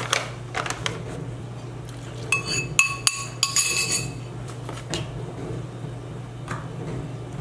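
Kitchen utensils clinking against each other, a quick cluster of ringing clinks about two to four seconds in, with softer handling and pouring noises while cookie ingredients go into a plastic mixing bowl. A steady low hum runs underneath.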